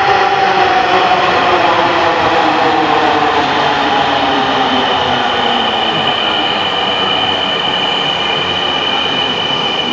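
Dhaka Metro Rail electric train pulling into the platform and slowing: a loud running sound with a whine that falls slowly in pitch as it decelerates, and a steady high-pitched tone joining about halfway through.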